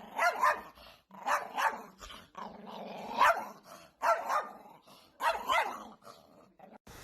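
A dog barking repeatedly, mostly in quick pairs of barks.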